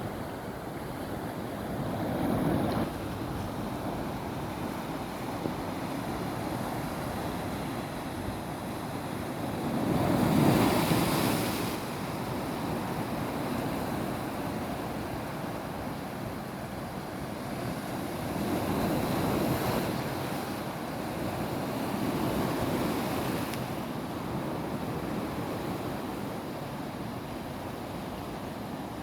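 Sea waves breaking on rocks and washing into rock pools: a steady wash of surf that swells several times, about 2, 10, 19 and 22 seconds in, loudest at the surge about 10 seconds in.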